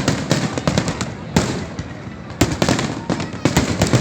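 Fireworks display: a dense run of bangs and crackling pops, with louder booms about a second and a half in, about two and a half seconds in, and near the end.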